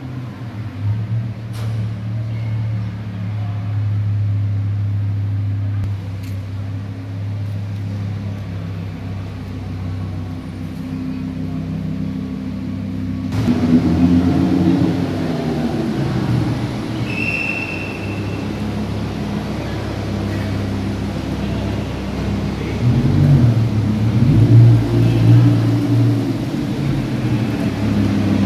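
Lamborghini Huracán's V10 engine idling and rolling at walking pace. It gives short throttle blips a little after the middle and again, loudest, near the end.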